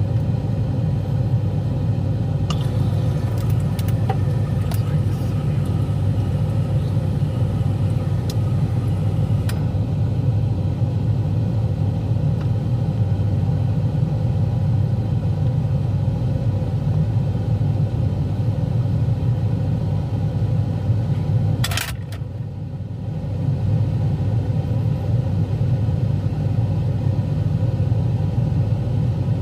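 Whirlpool refrigerator ice maker releasing ice: scattered clicks and clinks a few seconds in as cubes drop, and a sharp clatter about two-thirds of the way through. A loud, steady low hum runs underneath and dips briefly just after the clatter.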